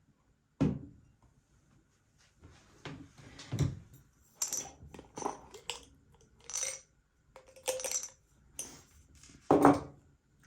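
Kitchen handling sounds: a sharp knock of something set down, then a string of short clinks and scrapes of dishes and utensils, with another loud knock near the end.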